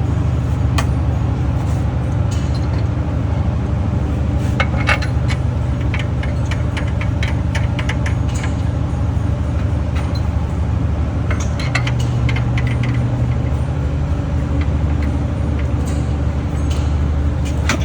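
Metal tools and engine parts clinking and rattling in several short clusters as the engine is being assembled, over a steady low drone of machinery running.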